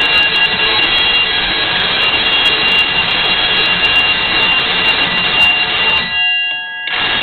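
Conventional fire alarm bells ringing continuously and loud, then stopping about six seconds in, the gongs still ringing out after; a brief burst of ringing comes near the end.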